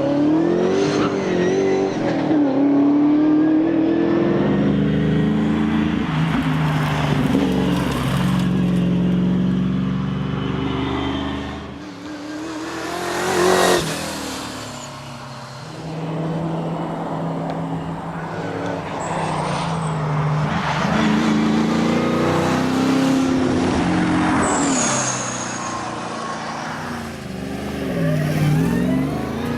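Holden Torana's engine running hard, its note climbing and dropping repeatedly as it is driven through the revs. There is a brief loud surge about thirteen seconds in.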